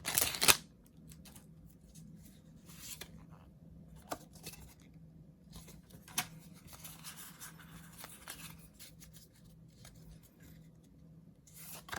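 Soft rubbing and flicking of Pokémon trading cards being slid one behind another, with a few light clicks.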